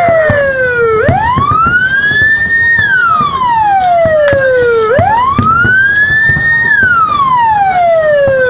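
A siren wailing, its pitch sweeping quickly up and then sliding slowly down again about every four seconds, two full cycles in all. Scattered clicks and low knocks sound underneath.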